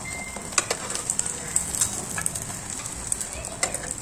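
Beaten-egg omelette sizzling in hot oil in a pan over a low gas flame, with scattered sharp clicks and the scrape of a steel spatula and spoon against the pan as the omelette is rolled up.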